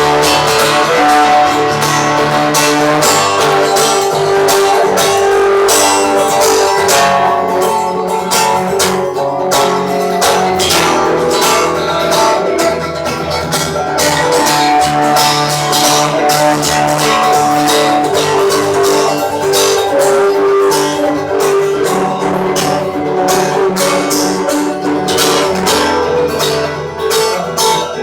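Acoustic guitar strummed and picked with a cello holding long bowed notes beneath it, a live guitar-and-cello duo playing steadily.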